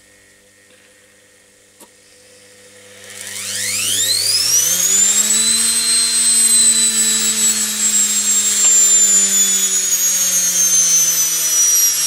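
Washing machine's brushed universal motor, fed through a knob speed controller, spinning up unloaded from about three seconds in: a whine that rises steeply in pitch, then runs on at high speed with the pitch easing slowly down. Before it starts there is only a low hum and a single click.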